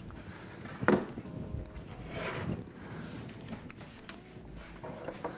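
Workshop handling noises: one sharp knock about a second in, then shuffling and rustling as a wooden cabinet door frame is picked up and carried.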